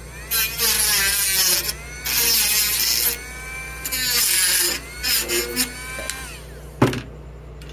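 Electric drill run in three bursts of about a second each, its whine rising as the motor spins up, followed by a few shorter spurts. A sharp knock comes near the end.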